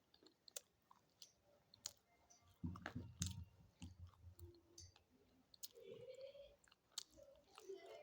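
Close-up chewing of slate pencil: quiet, sharp crunchy clicks scattered throughout, with a louder spell of heavy crunching from about two and a half to four and a half seconds in.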